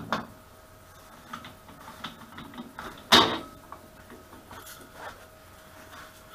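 Large metal lathe chuck jaw plate clanking and knocking as it is handled and fitted onto the wood lathe, with a loud ringing metal clank about three seconds in and lighter knocks and clicks around it. A faint steady hum runs underneath.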